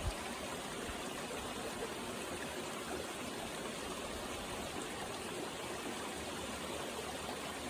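Creek water flowing steadily over rocks, an even constant rush.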